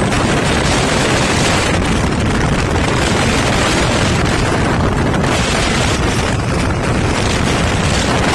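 Heavy trucks driving past close by, one after another: loud, steady engine and road noise with no distinct tones.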